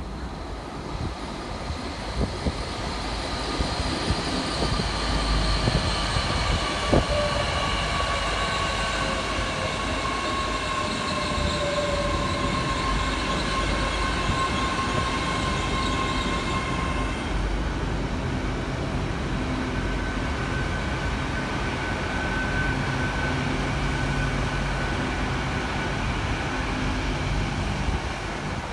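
A Great Western Railway Class 802 intercity train passing through a station: a steady rumble of wheels on rail, with several high whining tones that fall slowly in pitch as it passes. The whine stops about two-thirds of the way through, leaving the rumble and a lower hum.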